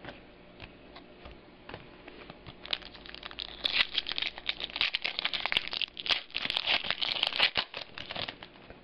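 Foil wrapper of a trading card pack being torn open and crinkled by hand: a few faint clicks, then about five seconds of dense crackling and rustling.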